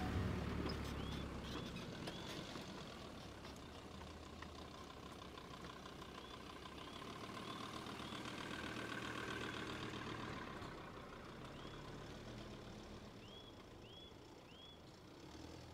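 Off-road vehicles, a line of 4x4 SUVs and a van, driving slowly past on a dirt forest track. Their engines make a faint low rumble that swells about halfway through and then fades. Small birds chirp now and then.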